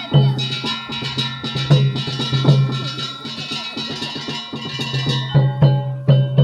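Festival float music (Gion-bayashi): taiko drum strikes under ringing metal gongs or bells, played in a steady rhythm.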